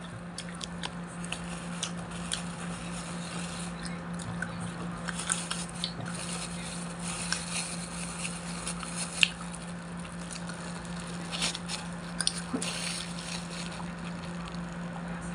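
Close-up eating sounds of turon, a fried banana spring roll: chewing with scattered crunches, smacks and wet clicks, over a steady low hum.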